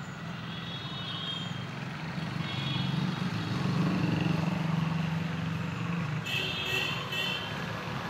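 A motor vehicle engine running steadily, its low drone growing louder towards the middle and easing off near the end.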